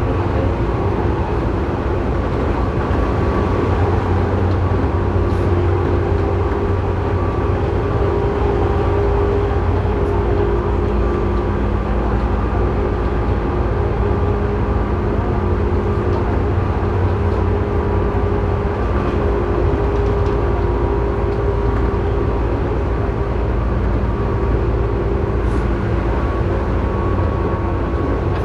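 Tobu 9000 series electric train running, heard inside motor car MoHa 9204 above its armature chopper controller: a steady low rumble with a whine of several steady tones from the chopper, whose noise is abnormal.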